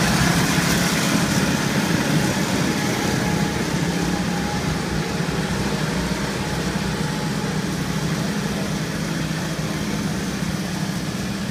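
Several small go-kart engines running as the karts lap the track. They are loudest about a second in as the karts pass close, then slowly fade as they move off around the far side.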